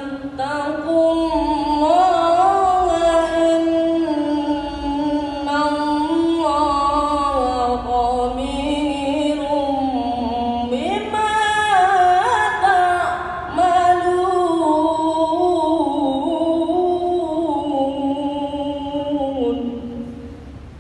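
A boy reciting the Qur'an in melodic tilawah style into a microphone: long, ornamented sung phrases that bend up and down. After a short breath about halfway through, a new phrase starts higher, and the recitation trails off near the end.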